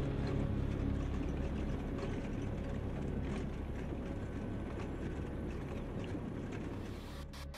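Vehicle driving on a dirt bush track: a steady low rumble of engine and road noise that slowly fades. A few sharp clicks come near the end.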